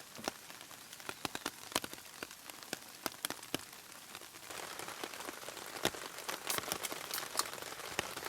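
Rain falling in a forest: a steady patter of rain with many heavy drops tapping irregularly on a nearby surface. The hiss of the rain grows a little louder about halfway through.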